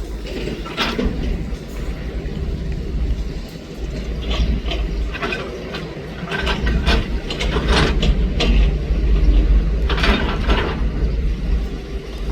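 Komatsu PC200 hydraulic excavator's diesel engine running steadily under load, with repeated short clanks and scrapes as it works, most of them in the middle and later part.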